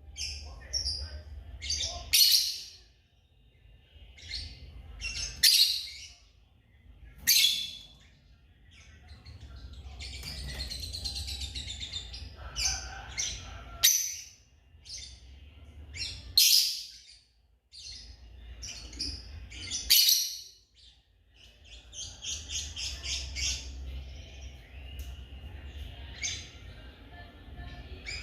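African lovebirds calling: sharp, high-pitched chirps and squawks repeated every second or two, with stretches of rapid chattering about a third of the way in and again late on.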